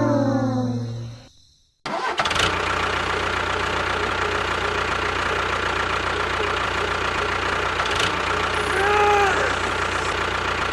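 Music fades out and cuts to a brief gap. A small motor-driven machine then starts and runs steadily with a low hum. Near the end there is a short whine that rises and falls.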